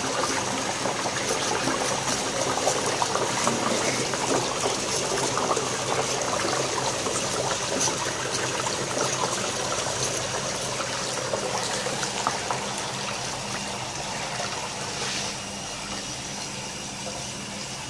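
Warm tap water pouring into a washbasin onto dry ice, which bubbles as it sublimates: a steady rush of water, a little quieter in the last few seconds.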